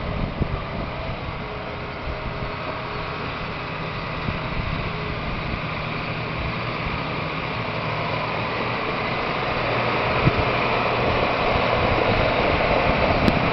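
John Deere 8260R tractor's six-cylinder diesel engine running as the tractor drives slowly across gravel, growing louder over the last few seconds as it comes closer.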